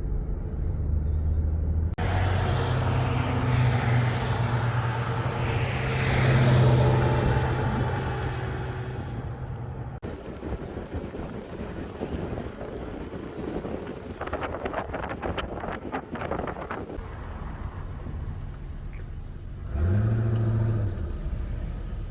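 A motor vehicle running with road and wind noise, swelling to its loudest about six or seven seconds in. It cuts off suddenly, leaving quieter rushing noise with a stretch of rapid fluttering, and a short low engine hum comes in near the end.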